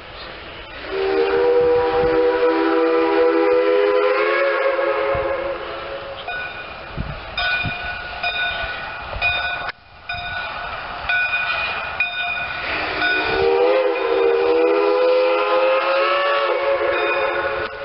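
Steam whistle of an 1882 Dubs-built 4-4-0 steam locomotive sounding two long blasts about twelve seconds apart, each rising slightly in pitch near its end. Between the blasts the train is heard rolling along the track.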